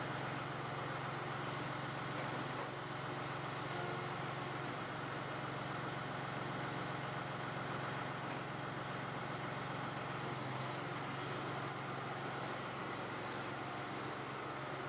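John Deere 5055E tractor's diesel engine running steadily as the tractor moves off with its front loader raised.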